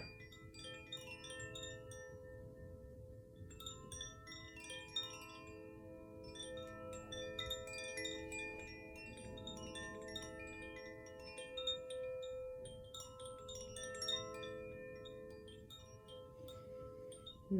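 Wind chimes ringing: many light, overlapping struck notes tinkling in the high range over a few long-held lower ringing tones.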